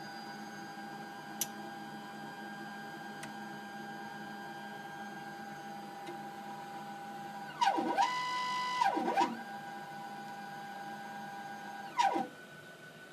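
Phenom desktop scanning electron microscope pumping down its vacuum after a scan is started: a steady mechanical whine over a low hum, with a click about a second in. About two-thirds of the way through, a motor whirs in a sweep that falls, holds and rises in pitch. Near the end a shorter sweep comes, and then the whine stops.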